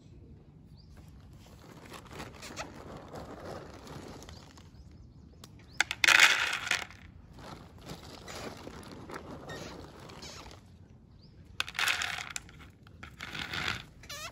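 Dry dog kibble rattling into a plastic bowl, in a loud burst about six seconds in and again in two bursts near the end.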